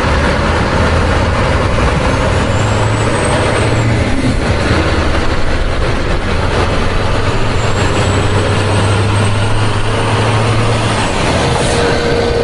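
Heavy truck engine running steadily, with a faint high whistle that glides upward twice.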